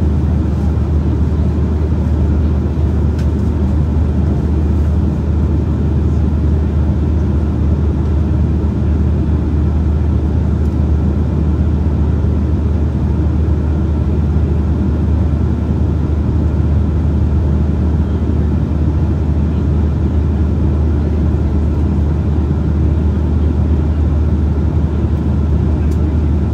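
Steady cabin noise inside an Embraer E175 airliner in flight: a constant low drone of the GE CF34 turbofan engines and rushing air, heaviest in the deep low end, with no change in pitch or level.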